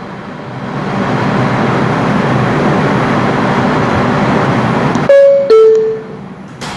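Steady running noise inside an R142 subway car, building over the first second as the train gets under way. About five seconds in it cuts off abruptly, and a descending two-note electronic chime sounds, followed by a short click near the end.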